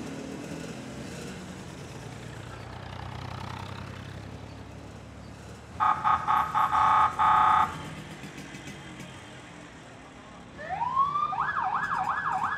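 Background street hum, then a loud electronic alarm: a harsh pitched tone chopped into about six rapid honks over two seconds, and near the end a tone that glides upward and then warbles quickly up and down, about three times a second, as a car alarm or siren does.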